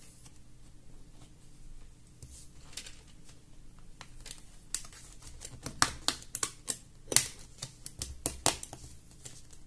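Laptop display's plastic bezel being pried off the panel with a thin metal pick: a run of short, sharp plastic clicks and snaps, sparse at first and coming several a second from about halfway through.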